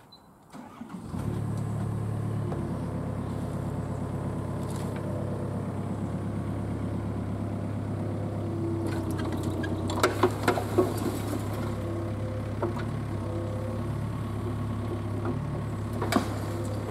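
Excavator's diesel engine running steadily; it comes in about a second in. A clatter of knocks around the middle and another knock near the end are the junk dropping from the bucket into the steel dump body of a truck.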